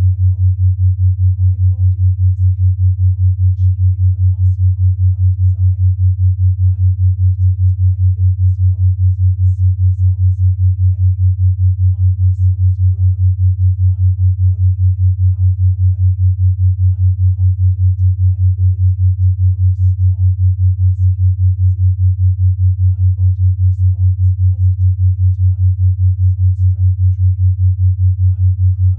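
A steady low pure tone, the carrier of 5 Hz binaural beats, pulsing rapidly and evenly in loudness.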